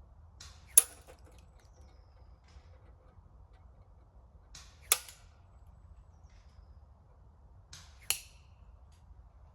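Three shots from a Novritsch SSG96 spring-powered bolt-action airsoft sniper rifle, each a sharp crack, spaced about three to four seconds apart. A fainter click comes just before each shot.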